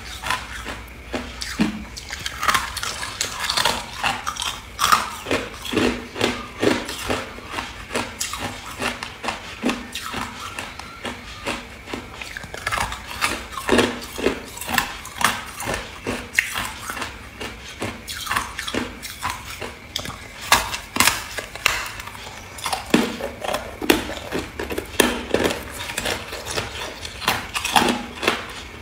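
A person biting into a large block of hard ice and chewing the pieces: a long run of sharp cracks and crunches, several a second.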